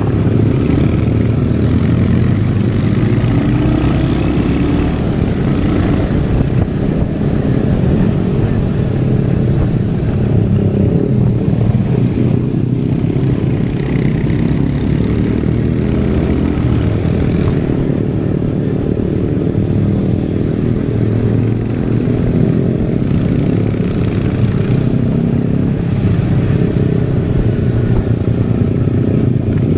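Royal Enfield Hunter 350's single-cylinder engine and exhaust running steadily while riding, heard from the rider's position, with only small changes in engine speed.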